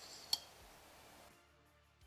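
A single sharp metallic clink, metal-on-metal, as a differential pinion gear with its tapered roller setup bearing is handled on the workbench. Faint background music comes in under it.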